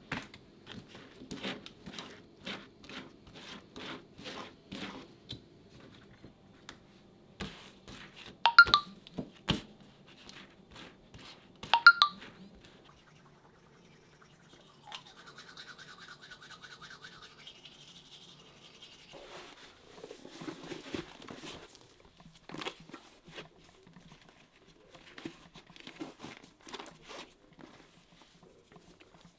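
A knife scraping margarine onto slices of bread in quick repeated strokes, then two sharp ringing clinks. After that come the steady scrubbing of a toothbrush on teeth and, near the end, the rubbing of shoelaces being pulled and tied.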